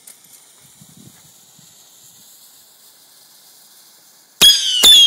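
Firework fuse hissing for about four seconds, then two sharp bangs half a second apart as the fireworks go off. Each bang is followed by a shrill whistle falling slightly in pitch.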